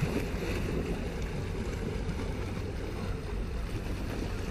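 Wind buffeting the microphone, a steady low rumble with no clear tone in it.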